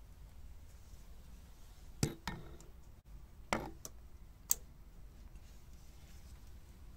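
A handful of sharp metallic clicks and knocks, a tool and hands against the gearbox shift linkage while the shift rod is worked off its ball joint. They come close together between about two and four and a half seconds in, over a low steady hum.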